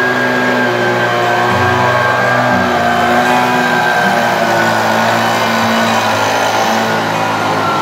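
Handheld leaf blower running steadily, its motor note stepping up and down a few times.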